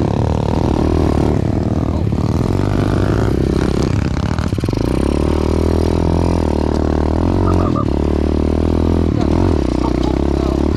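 Small single-cylinder pit bike engine being ridden hard, revving up and down with the throttle. The pitch drops off briefly about two seconds in and again about four and a half seconds in, then climbs again.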